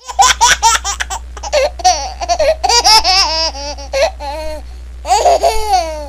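A baby laughing in short high-pitched bursts, starting suddenly, with some longer squealing laugh notes in the middle.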